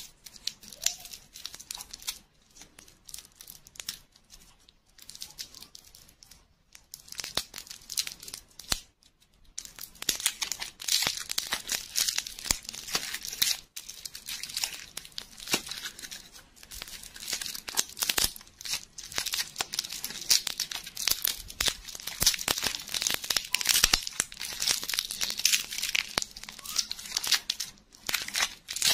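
Plastic lollipop wrapper being crinkled and torn open by hand: dense crackling, quieter for the first several seconds and louder from about a third of the way in.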